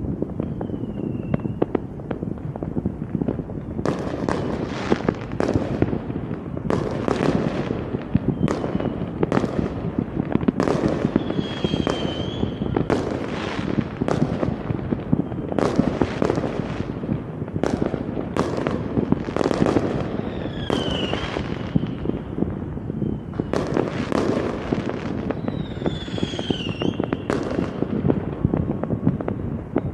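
Fireworks going off in a dense barrage of bangs and crackling, with several short whistles falling in pitch.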